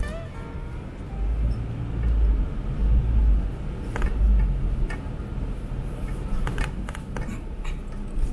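Off-road vehicle driving over rough ground: an uneven low rumble that swells and fades, with scattered knocks and rattles.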